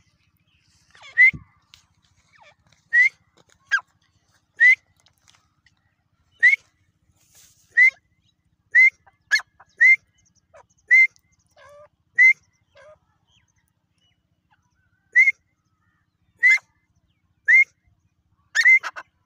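Grey francolin (teetar) calling: short, high whistled notes, each sliding upward, repeated about every second or so with a brief pause midway.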